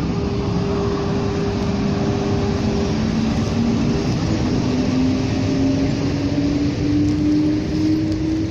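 EP1 electric locomotive accelerating from a standstill: its traction whine rises slowly and evenly in pitch over a steady rumble of the train rolling on the rails. A second steady hum fades out about halfway through.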